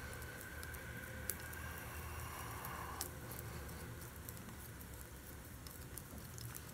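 Palette knife mixing thick paint on a palette: faint soft squishing and scraping, with a couple of sharp clicks.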